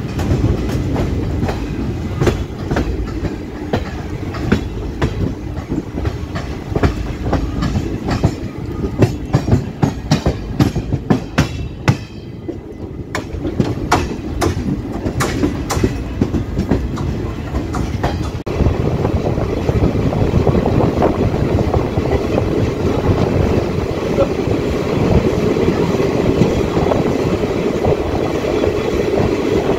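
Wheels of a moving passenger train clattering over rail joints and points, heard from the open door of a coach, with a rapid run of sharp clicks over a low rumble. About eighteen seconds in, the sound changes suddenly to a steadier, louder rumble.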